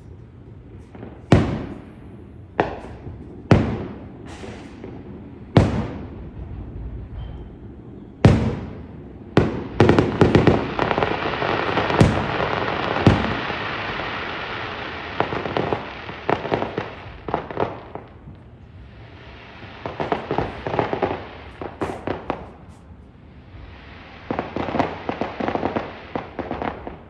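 Fireworks going off: a string of single sharp bangs a second or two apart, then a dense run of rapid crackling and popping from about ten seconds in. Two more clusters of crackling follow near the end.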